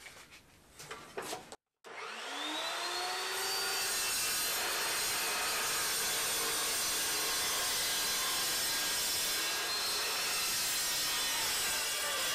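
Evolution S380 15-inch metal-cutting chop saw spinning up with a rising whine, then cutting through quarter-inch-thick 2.5 by 3 inch steel tube with a steady, loud, high noise for about ten seconds.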